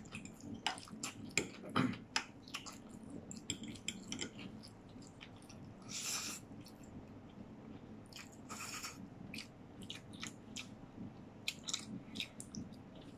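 Close-miked eating sounds of a person chewing stir-fried noodles and sausage: wet chewing and lip-smacking with many short clicks, and a longer slurp of noodles about six seconds in.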